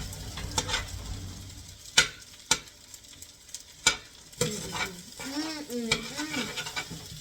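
Fried rice sizzling in a pan while being stirred with a utensil that clicks and scrapes against the pan, with sharp knocks about 2, 2.5 and 4 seconds in.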